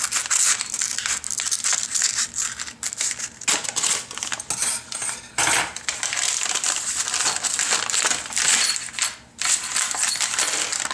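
Scissors snipping through a taped paper wrapping, then the paper crinkling and rustling with many small crackles as it is unrolled and opened by hand.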